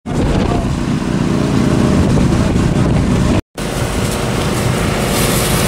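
Small gasoline engine of a brush fire truck's skid-mounted water pump running steadily at working speed. It cuts out for a split second about three and a half seconds in, then the same steady running resumes.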